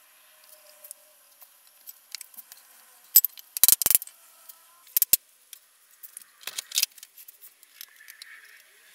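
Handling noise from assembling a glued wooden frame: sharp light clicks and taps, a tight cluster about three to four seconds in, another near five seconds and more around six and a half seconds.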